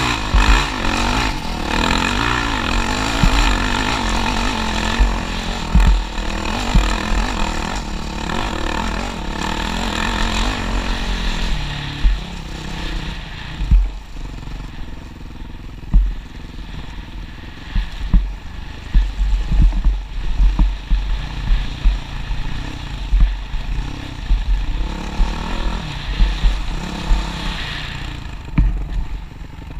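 Yamaha WR450F's single-cylinder four-stroke engine revving hard for about the first twelve seconds of a hill climb, then dropping to lower, quieter revs. Frequent short low thumps run through the second half, heard through the helmet-mounted camera.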